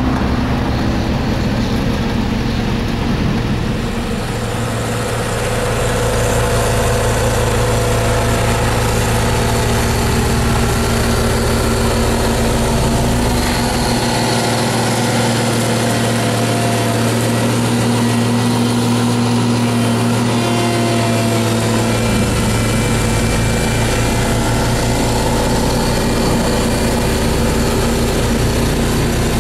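Caterpillar CS-583C single-drum compactor's diesel engine running steadily. A deep low rumble underneath drops out for several seconds midway, then comes back.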